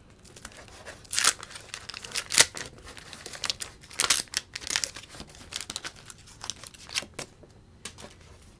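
A wax paper wrapper on a 1989 Donruss baseball card pack being torn open and crinkled, with a run of irregular sharp crackles that die down near the end.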